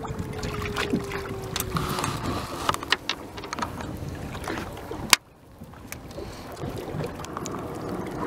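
Wind buffeting the microphone in an open fishing boat, with scattered short knocks and clicks from handling the fish and gear. A faint steady hum sinks slightly in pitch over the first two seconds, and there is one sharp click about five seconds in.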